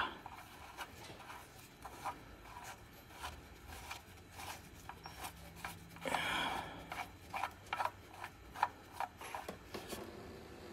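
Hand tools being worked against metal. Quiet rubbing and scraping, with a short noisy scrape about two-thirds of the way in, then a run of light, irregular clicks, a few a second.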